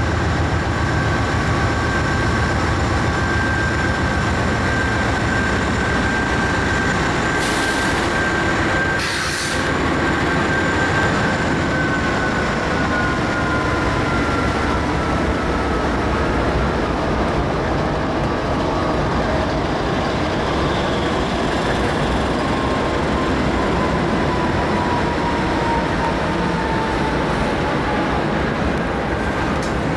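Norfolk Southern diesel freight locomotives passing close by at slow speed, engines running steadily over the rumble of the wheels on the rails. A thin wheel squeal holds one pitch and then slowly falls through the second half. Two short hisses come about 8 and 9 seconds in.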